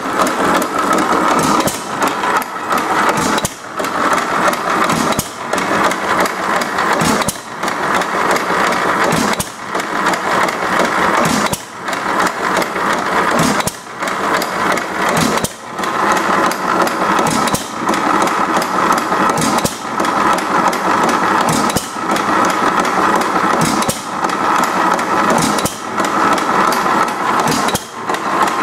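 1914 Economy Model D single-cylinder hit-and-miss engine running, with a steady fast mechanical clatter that dips briefly about every two seconds.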